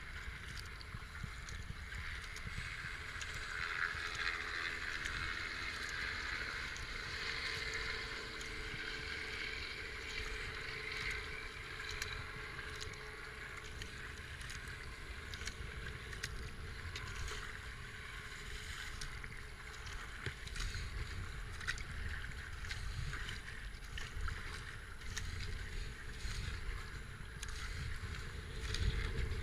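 Racing kayak being paddled: the double-bladed paddle dipping and splashing water on alternate sides and water washing along the hull, with a low rumble of wind on the helmet camera's microphone.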